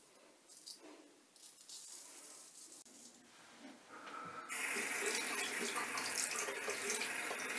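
Faint scraping of a straight razor across lathered stubble, then a bathroom tap turned on about four and a half seconds in, with water running steadily into the sink.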